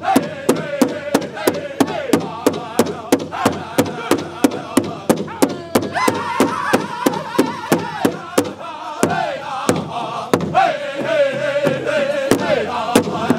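Powwow drum group beating a large shared hand drum with padded sticks in a steady pulse of about three strokes a second, while the singers chant together over it. The singing jumps to a high held note about six seconds in.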